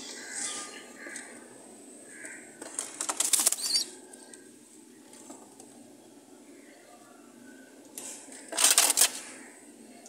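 Pigeon flapping its wings in two short bursts while held by its feet, about three seconds in and again near the end; the second burst is the louder.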